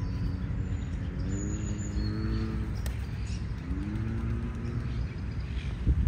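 Birds chirping with a few short, high notes in the first half, over a steady low rumble; low wavering calls come in twice.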